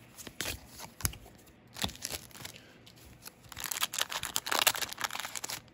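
A few scattered sharp clicks of trading cards being handled, then, about two-thirds of the way in, a dense burst of tearing and crinkling as a foil booster-pack wrapper is ripped open.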